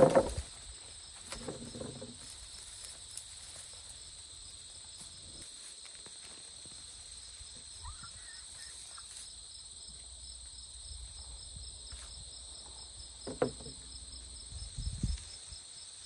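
Steady high-pitched insect chorus, a continuous trill with a faint regular pulse. A few brief knocks and rustles come through it, the loudest a little after thirteen seconds in.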